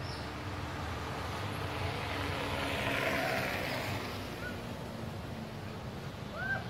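Outdoor background noise of a motor vehicle passing by, swelling to its loudest about three seconds in and then fading. A few faint short chirps are heard, with a clearer one near the end.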